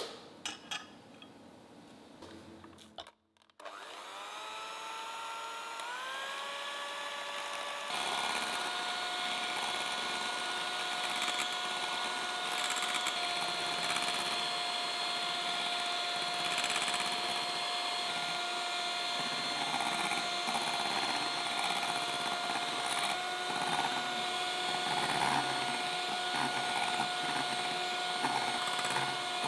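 A glass clink, then a Philips electric hand mixer starting up, its motor whine rising in pitch in steps, then running steadily at high speed as its beaters whip an egg batter in a glass bowl.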